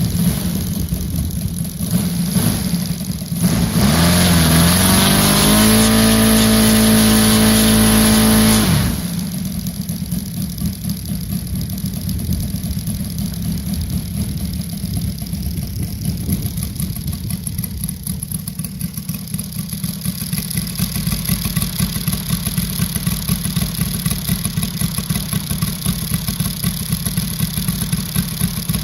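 Saito FG-60R3 three-cylinder four-stroke gasoline radial engine being run in. It idles, revs up with rising pitch about four seconds in, holds a steady high throttle for a few seconds, then drops sharply back to idle and keeps idling.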